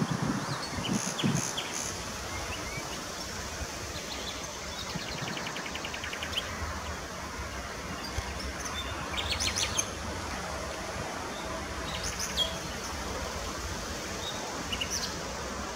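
Birds singing and chirping, including a rapid trill about five seconds in and short calls near the middle and the end, over a low steady rumble.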